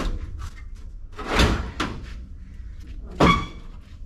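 Three knocks and clanks of sheet metal as a pickup's radiator core support is shifted against the front end; the last, near the end, is the loudest and rings briefly.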